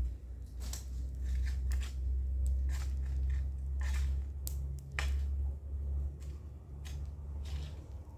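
Irregular sharp clicks and snaps from hand work among garden plants, over a steady low rumble.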